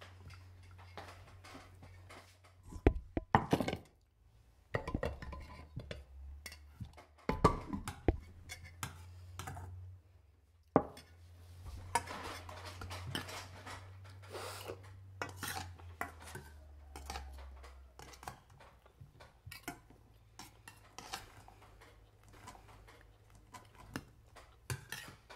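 Spoons and serving utensils clinking and scraping against ceramic bowls and metal cooking pots during a meal, in irregular knocks with several louder clatters in the first half. A low steady hum runs underneath.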